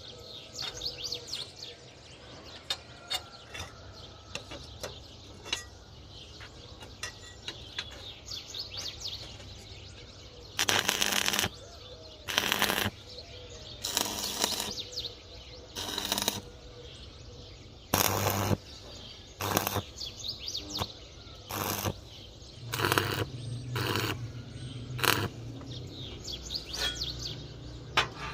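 Birds chirping, then about a dozen short, loud bursts of hissing noise, each under a second, several seconds apart.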